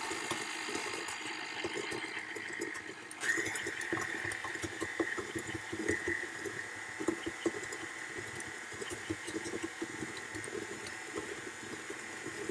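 Electric mixer running, beating softened butter and sugar together (creaming), with an uneven churning under a steady motor hum. About three seconds in it gets louder and a high whine comes in, as if switched to a faster speed.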